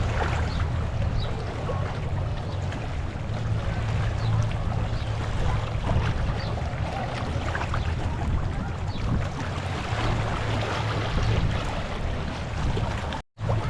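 Seashore ambience: water washing over rocks with wind on the microphone and a low steady rumble underneath. The sound cuts out for a moment near the end.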